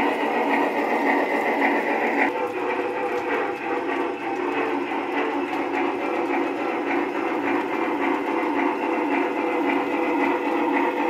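Model trains running on the track: a steady whir of the small electric motors and gears, with the wheels rattling along the rails. The sound changes suddenly about two seconds in, then runs on steadily.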